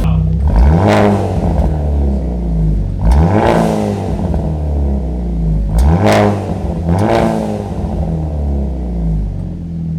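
Hyundai Elantra N's turbocharged 2.0-litre four-cylinder idling and being blipped four times through a SXTH Element titanium axle-back exhaust, each rev rising quickly and falling back to idle. The note is a lower pitch than the stock exhaust.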